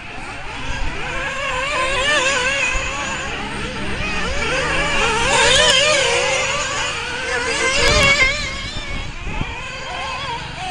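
Radio-controlled racing buggies running on the dirt track, their high motor pitch wavering rapidly up and down as they accelerate and back off. It gets louder as cars pass close, about halfway through and again near 8 seconds in.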